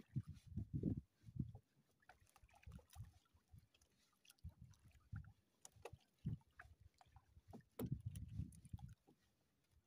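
Irregular dull knocks and rustling on a small wooden boat as a fishing handline is hauled in hand over hand, with a few sharp clicks. The knocks come in clusters: at the start, about halfway, and again near the end.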